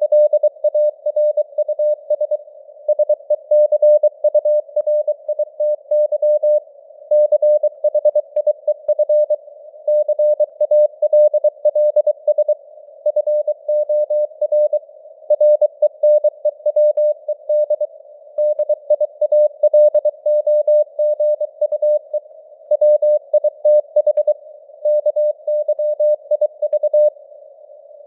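Morse code (CW) sent at about 23 words per minute: a single steady tone keyed on and off in dots and dashes, with short pauses between words. Under it runs a narrow hiss of simulated radio noise, as heard on a receiver.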